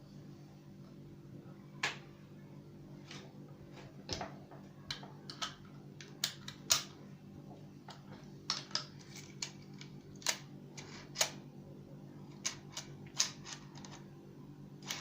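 Irregular sharp clicks and clacks from a hand tobacco-rolling machine being handled and worked during a repair, over a low steady hum.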